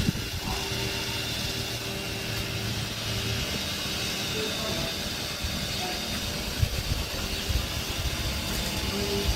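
A motor running steadily, a hum with a few constant tones and occasional low knocks.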